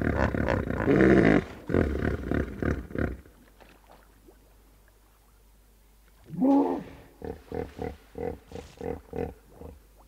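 Hippopotamus calling. A run of deep, pitched grunting honks lasts about three seconds and then falls quiet. About six seconds in comes one long drawn-out call, followed by a rhythmic series of about ten short honks, three or four a second.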